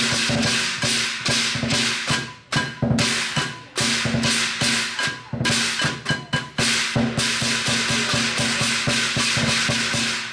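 Lion dance percussion: a big drum and clashing cymbals beaten in a fast, dense rhythm, with a few brief breaks in the first seven seconds.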